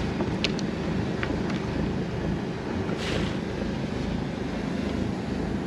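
Fishing boat engine running steadily at low revs, a low even rumble, with wind on the microphone. A few light clicks come near the start, and a brief rush of noise about three seconds in.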